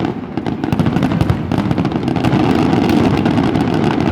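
A dense fireworks barrage: many shells bursting close together, making a continuous low rumble full of sharp cracks and crackles.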